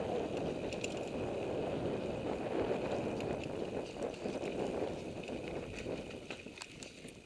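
Mountain bike riding fast down a dirt forest trail, heard from a helmet camera: a steady rush of wind and tyre noise, with scattered clicks and rattles from the bike. It eases off near the end.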